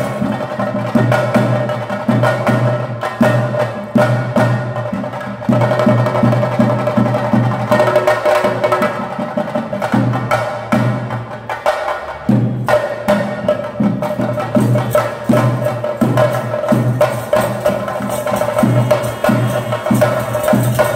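Theyyam temple percussion ensemble: chenda drums playing a rapid rhythm with a low beat about twice a second, under a kuzhal (double-reed pipe) holding a steady high note that breaks off briefly in the middle.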